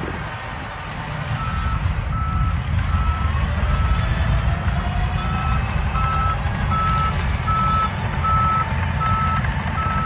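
Shantui DH17C3 crawler bulldozer's diesel engine running under load with a steady low rumble, its reversing alarm beeping at one pitch about every three quarters of a second from about a second and a half in: the dozer is backing up.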